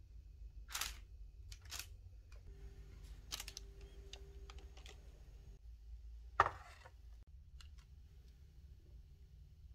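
Scattered light clicks and taps from kitchen handling, a fork, a glass bowl and a metal baking tray, with one sharper knock about six and a half seconds in.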